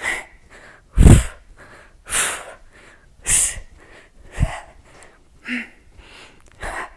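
A woman breathing hard through weighted crunches: a sharp, breathy exhale about once a second, the loudest about a second in.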